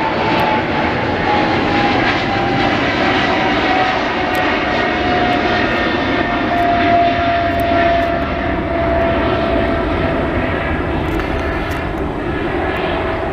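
Airliner passing close by, its engines running loud with a rumble and a whining tone that slowly falls in pitch as it goes past.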